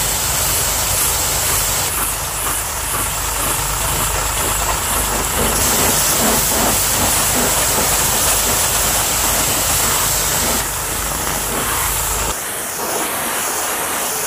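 Pressure washer jet spraying onto a car's body panels: a steady hiss of water over the low hum of the pump motor. The motor hum cuts off abruptly near the end while the hiss goes on.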